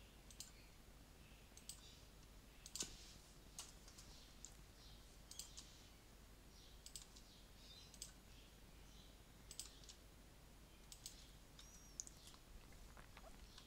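Scattered single clicks of a computer pointing-device button, about a dozen at roughly one a second, the loudest a little under three seconds in, over faint room hiss.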